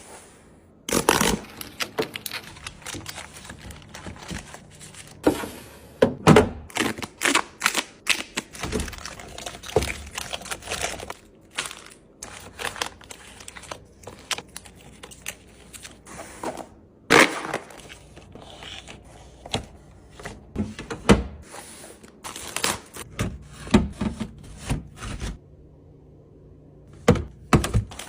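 Food containers and packages being set down and handled while restocking: an irregular run of knocks, taps and clatters, with a short pause near the end.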